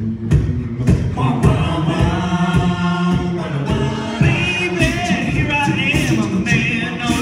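Male a cappella group singing live through a PA: low sustained bass and chord voices under an evenly pulsing vocal percussion beat, with higher voices coming in about a second in and again about four seconds in.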